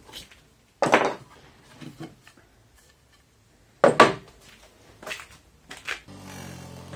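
Wooden knocks and clatter from a MDF board and tools being handled on a workbench, with two loud knocks about three seconds apart and a few lighter clicks. About six seconds in, an electric power tool's motor starts and runs at a steady pitch.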